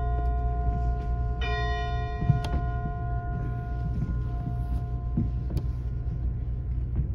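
A church bell struck once about a second and a half in, its tone ringing on for a few seconds, over a steady low rumble of wind on the microphone. There is a sharp click a little later.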